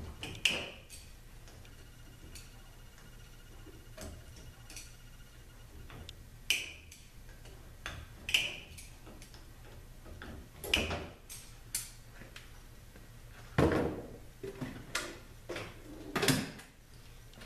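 Scattered clicks and clinks of hand tools working Torx bolts out of a Chrysler 42RLE transmission valve body, with about half a dozen sharper knocks of metal parts being set down, the loudest toward the end.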